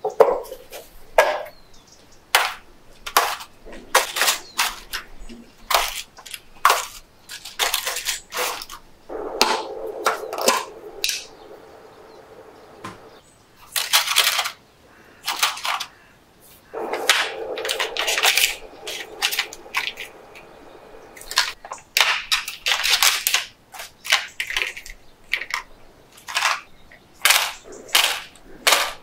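Hands handling snack packaging and box parts: an irregular run of sharp clicks, snaps and crinkles, with a few longer crackling rustles of plastic.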